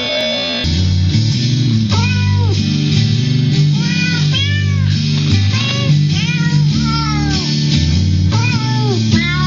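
A cat song: a series of short cat meows, rising and falling in pitch, repeated over a guitar-backed music track. The meows begin about two seconds in.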